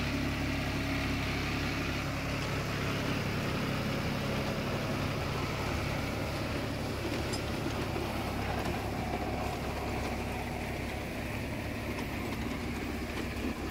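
John Deere 5055E's three-cylinder turbo diesel engine running steadily under load at a set 1500 rpm, driving a Shaktiman Tusker rotary tiller through the 540 rpm PTO, its blades churning soft field soil.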